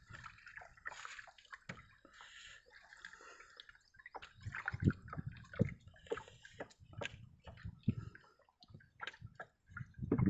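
Shallow water sloshing and splashing in the bottom of a boat as hands handle a caught fish and free the hook from its mouth, with irregular small knocks and drips.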